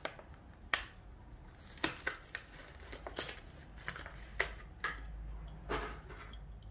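Plastic blister packaging of a diecast toy car being handled, with scattered crinkles and sharp clicks.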